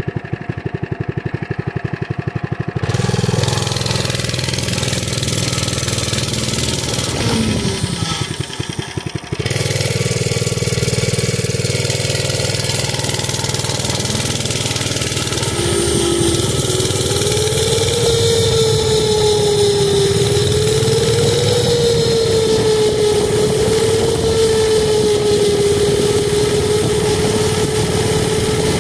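Mini bike's small engine idling with a rapid putter, then revving up as the bike pulls away about three seconds in. It eases off briefly around eight seconds, then runs steadily at speed with a whine that wavers a little in pitch from about halfway on.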